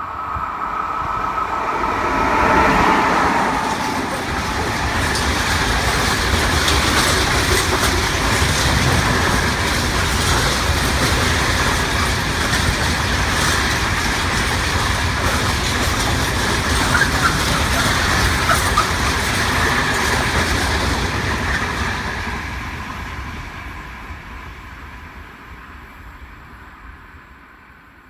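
A RENFE class 251 electric locomotive passes, loudest about two and a half seconds in, followed by a long train of empty coil-carrier flat wagons rumbling by. The wheels click steadily over the rail joints, and the sound fades away over the last several seconds as the train leaves.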